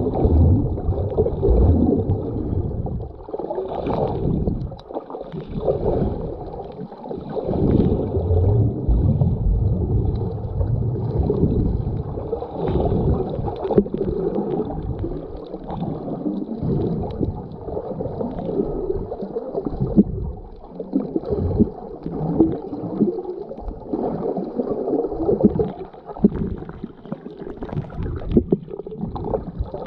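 Muffled underwater water noise picked up by a camera held below the surface: irregular surging and gurgling of water moving over the camera as the snorkeler swims.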